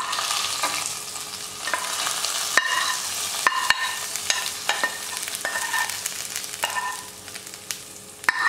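Hot oil tempering of mustard seeds, dried red chillies and curry leaves sizzling as it is scraped into yogurt-based pineapple pachadi. A steel spoon scrapes and clinks repeatedly against the pans. The sizzle thins out near the end.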